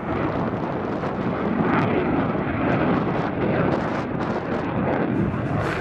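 Fighter jet's engine noise as it climbs overhead, loud and steady with a ragged crackle.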